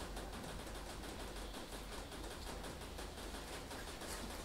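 Faint strokes of a felt-tip marker writing on a whiteboard, over a steady low hum of room noise.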